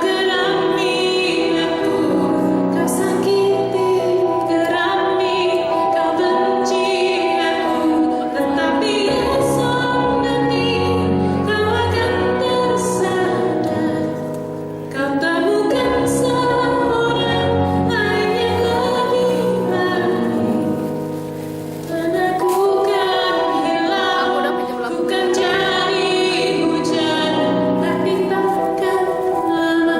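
Woman singing a slow song live over her own electric piano accompaniment, with sustained chords under the voice; the music eases off briefly twice before picking up again.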